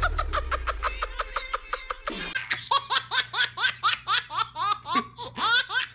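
A man laughing hard in quick repeated bursts, then, from about two seconds in, a baby's belly laugh: a string of high squealing bursts, each rising in pitch.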